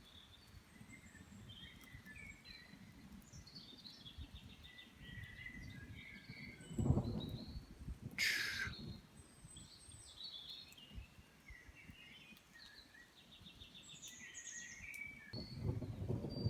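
Woodland birds chirping and trilling throughout, over a low rumbling background. A heavy low thud comes about seven seconds in, and a short sharp hiss follows about a second later.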